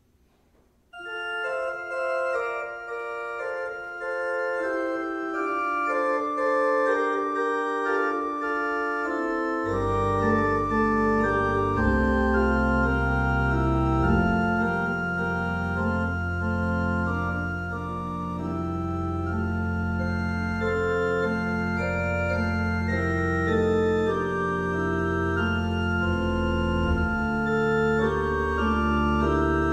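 Organ playing a slow prelude of sustained chords, starting about a second in; deep bass notes join about ten seconds in.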